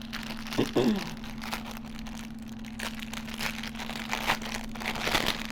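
Plastic packaging crinkling as a bundle of hair weave is handled, with a steady low hum underneath and a brief voice-like sound about a second in.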